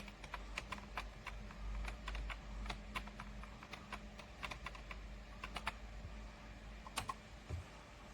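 Typing on a computer keyboard: quick, irregular key clicks, several a second, over a low steady hum.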